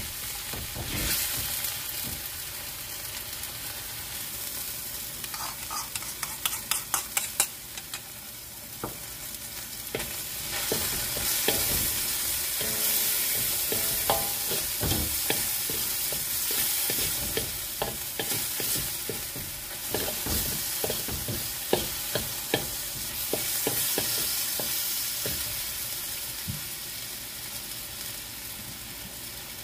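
Sliced chicken sizzling in a hot steel wok while a wooden spatula stirs it, scraping and tapping against the pan. There is a quick run of taps about six to seven seconds in, with more scattered taps after.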